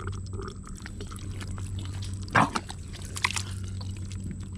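Wet squelching and small sucking clicks of a bare hand and arm working in soft mangrove mud, over a steady low hum. A single short, loud cry sounds about halfway through.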